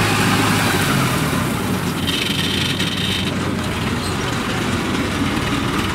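Engine of a small tracked rice-sack carrier running steadily as the crawler moves under load across a harvested paddy.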